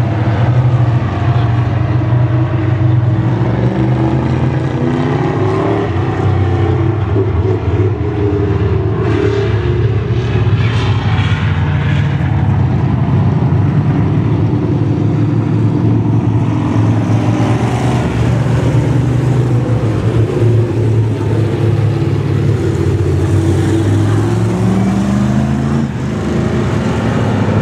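A pack of street stock race cars lapping a dirt oval: several engines running hard together, their pitch rising and falling as the cars pass and get back on the throttle out of the turns.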